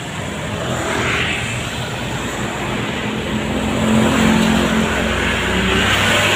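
Highway traffic passing close by: a vehicle's engine hum and tyre noise swell as it goes past, loudest about four seconds in.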